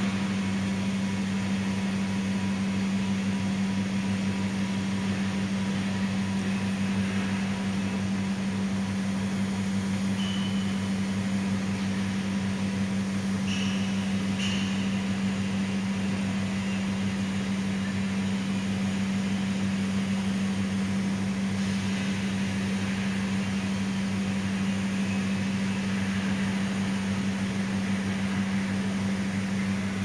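230 V 50 Hz AC contactor coil humming steadily while energized and pulled in, as a Danfoss MP 55 oil differential pressure switch counts down its 90-second trip delay with no oil pressure applied.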